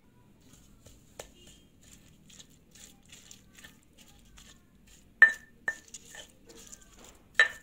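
Stone pestle grinding and crushing fresh chillies, shallots and tomatoes in a volcanic-stone cobek mortar to make sambal: soft wet scraping strokes, about two or three a second, with a few sharp stone-on-stone knocks, the loudest about five seconds in and just before the end.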